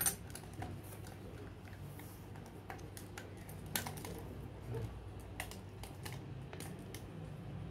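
Scattered light plastic clicks and taps from a motorcycle headlight housing and its H4 socket wiring being handled, over a faint low hum.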